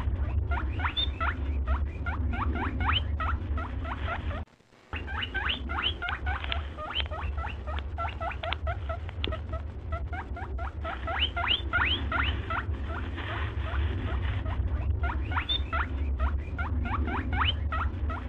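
Rapid, squeaky rising chirps of yarn rubbing and pulling on a plastic crochet hook as stitches are worked, over a steady low hum. The sound cuts out for a moment about four and a half seconds in.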